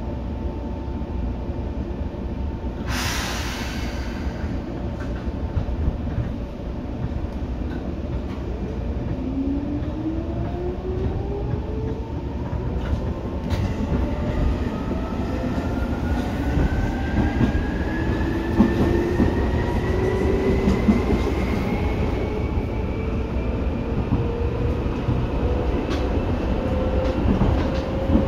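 Seibu 2000 series electric train heard from on board. There is a brief hiss about three seconds in, then the traction motors' whine rises steadily in pitch as the train picks up speed, over a constant rumble of wheels on rail.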